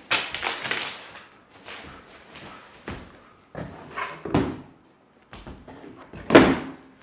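Irregular thumps, knocks and scrapes on a wooden stage floor as a performer kicks a padded cylindrical bag and tips a wooden box about, with the heaviest thump near the end.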